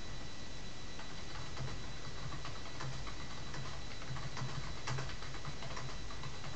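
Computer keyboard being typed on: quick, irregular keystroke clicks in short runs, over a steady background hiss with a faint high whine.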